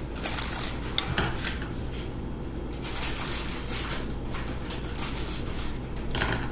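Metal spoons scraping and tapping on a wooden butcher block as ice cream is spread and chopped on it, with scattered light clicks and one sharper knock about a second in.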